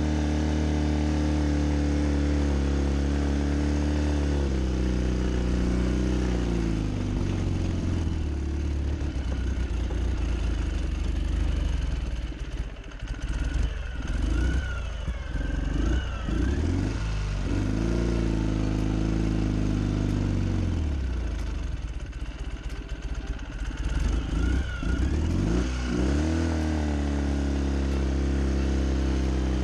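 Ural 750 sidecar motorcycle's flat-twin engine running, steady at first, then its speed drops and wavers through the middle before picking up again near the end.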